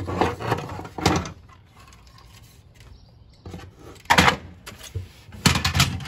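Hard plastic server fan parts being handled on a wooden workbench, heard as several short bursts of clattering and scraping. The loudest come about four seconds in and just before the end.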